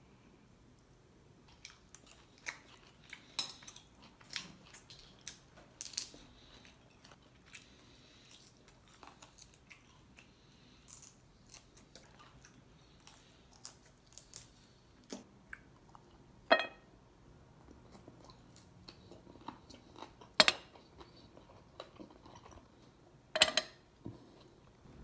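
A person chewing and crunching crispy deep-fried bone-in beef short rib. Sharp clicks of utensils on a ceramic plate come now and then, the loudest about two-thirds of the way in and near the end.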